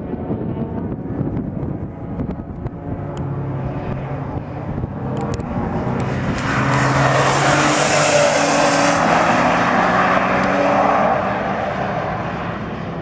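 BMW E46 M3's supercharged straight-six engine running under power as the car passes close by. It grows louder from about four seconds in, stays loudest for several seconds as it goes past, then eases off as it pulls away.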